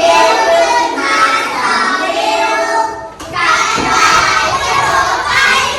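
Young children singing a song together, with musical accompaniment.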